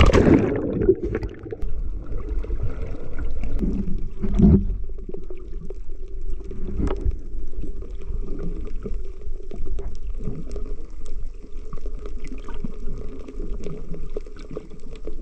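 Water noise picked up by a snorkeller's action camera as it goes under the surface: a splash at the start, then muffled underwater rumbling and gurgling with a few louder surges.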